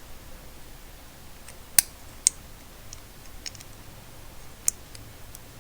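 Handling of an oscillating-tool blade and its metal adapter: a few sharp clicks and light ticks as the small metal parts are turned over and set against each other.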